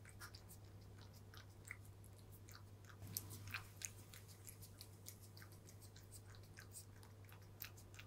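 Domestic cat crunching dry kibble: a quick, irregular run of small crunches, busiest about three seconds in.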